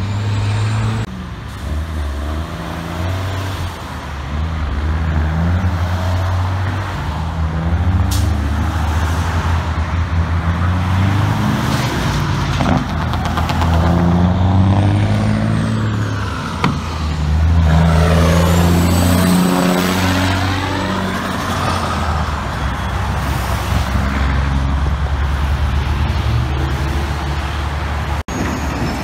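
Heavy diesel trucks pulling away and accelerating, the engine note climbing and dropping back in steps as they shift up through the gears. About two-thirds of the way in, a truck revs hard and passes close by.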